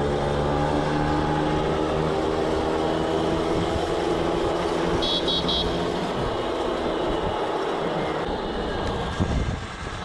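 Peugeot 103 moped's small two-stroke engine running steadily under way. About five seconds in there is a short high three-pulse beep, and near the end the engine note drops briefly.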